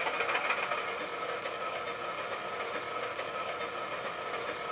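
Sound decoder in a 00 gauge model class 31 locomotive playing a diesel engine ticking over through the model's small built-in speaker, a steady hum. Its owner is not impressed with how the speaker sounds at idle.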